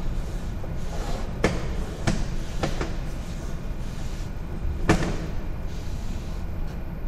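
Sewer inspection camera being pushed along the line, with a steady low rumble and a handful of sharp knocks about 1.5, 2, 2.7 and 5 seconds in.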